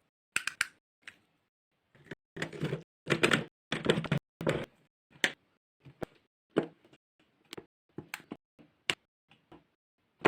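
Slime being squished and played with, making irregular sticky clicks and pops, with a few longer squelches in the first half.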